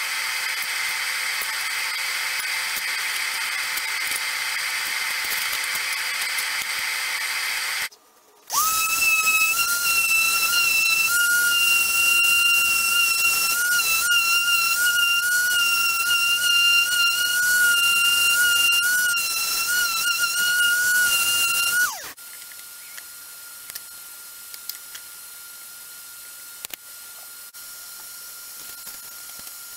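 A handheld power tool running on a plastic car bumper: a loud, steady high whine over hiss, wavering slightly, for about thirteen seconds before it cuts off suddenly. It is preceded by a steady hiss broken by a brief silence, and followed by a much quieter faint hum with a few light clicks.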